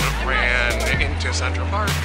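Background music with a strong, steady bass line, a wavering vocal line and a regular percussive beat.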